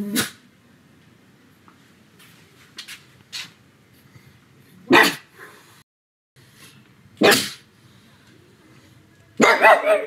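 Pug barking: a bark right at the start, single sharp barks about five and seven seconds in, and a quick run of several barks near the end.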